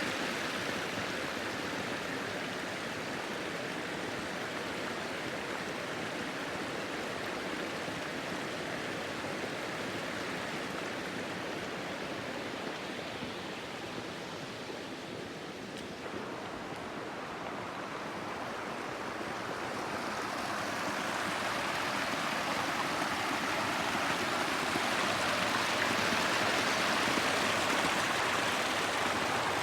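Water rushing over a small waterfall and along a stream, a steady rush that grows louder through the second half.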